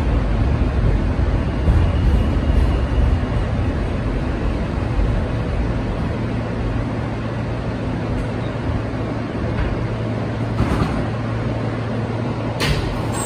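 New York City subway car running on elevated track and slowing into a station: steady rumble and wheel noise that eases off after a few seconds, leaving a steady low hum. A single sharp clack comes near the end.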